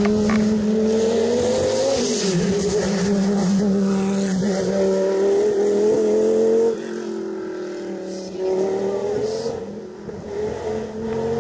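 Rally car engine at high revs. Its pitch dips about two seconds in, at a gear change, and climbs again, then the sound falls away abruptly near seven seconds. Tyres hiss on the wet road.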